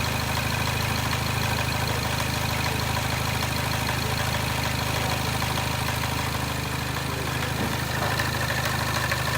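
Peugeot 3008's 1.6 EP6 turbo petrol engine idling steadily, with a characteristic metallic noise from the timing-chain side, which the mechanic suspects is a stretched timing chain.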